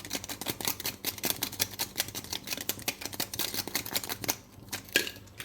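Rapid clicking and clinking from a kitchen utensil working at the soup pot as more salt is added, several clicks a second, stopping about four seconds in; one sharper knock follows near the end.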